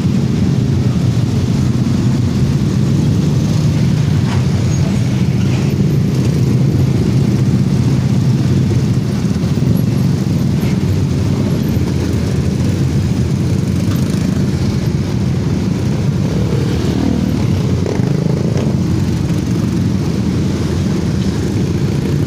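Dense crowd of small motorcycles and scooters idling and riding slowly past, their many engines blending into one steady, loud drone.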